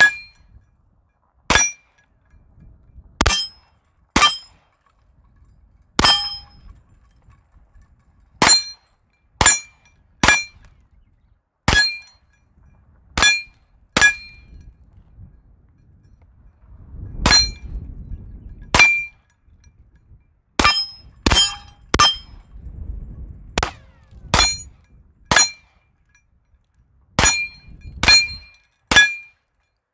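Ruger PC9 9mm carbine firing about twenty single shots at an uneven pace, one every one to two seconds, with a pause of about three seconds midway. Most shots come with the brief metallic ring of steel plate targets being hit.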